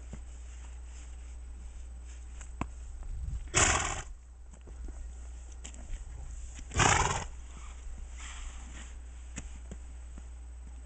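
Bay mare snorting twice, about three seconds apart, each a short, loud, fluttering blow through the nostrils.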